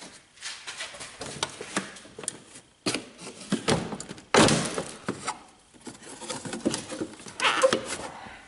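Plastic windshield cowl panel of a Chevy Cavalier being worked loose and pulled out by hand: irregular plastic clicks, knocks and scraping, with a louder scrape about four and a half seconds in.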